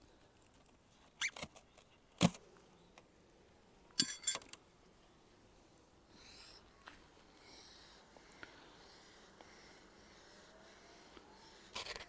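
Polystyrene hive lid prised up with a hive tool and lifted off: a few sharp squeaks and knocks in the first half, the loudest around four seconds in. After that, faint buzzing of bees from the opened hive.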